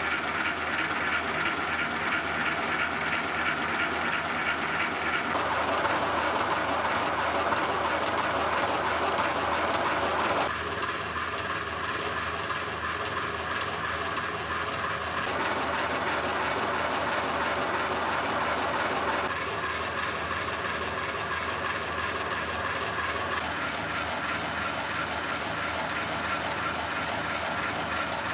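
Universal milling machine running a homebuilt gear-hobbing attachment, the hob cutting a spur gear: steady machine running noise with a high whine. Its tone shifts abruptly several times.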